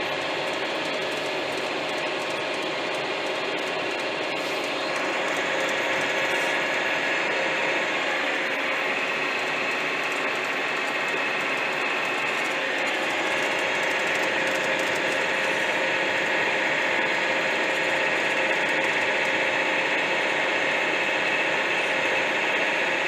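John Deere 6155R tractor's six-cylinder diesel and transmission working hard at about 1850 rpm, heard inside the cab, a steady drone with a gear whine on top. The tractor is hauling two loaded grain trailers uphill in a low powershift gear, and the sound gets louder about five seconds in.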